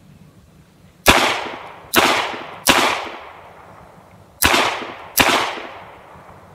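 Five shots from a Smith & Wesson M&P Shield 9mm pistol: three in quick succession, about three quarters of a second apart, then a pause of under two seconds and two more. Each shot is a sharp crack that trails off.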